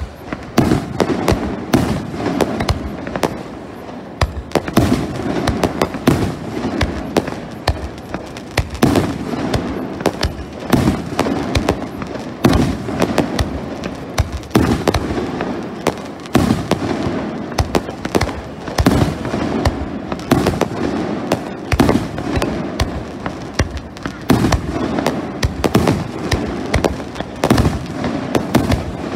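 Fireworks fired at close range: a continuous barrage of bangs and crackling from bursting shells, several a second, over the steady rushing hiss of ground fountains spraying sparks.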